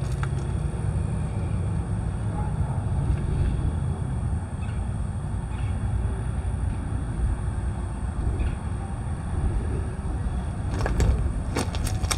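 Diesel locomotive with an EMD 645 engine idling: a steady low rumble with a constant high whine over it. A few crunching footsteps on gravel ballast near the end.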